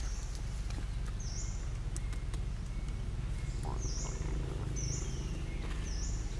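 A bird repeating a short, high call that dips in pitch, four or five times, about once a second in the second half, over a steady low rumble.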